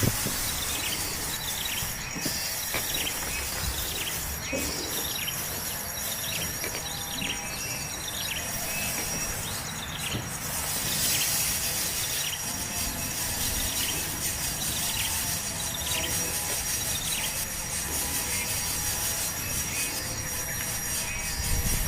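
A small bird calling over and over with short notes that slide down in pitch, about one or two a second, against a steady hiss.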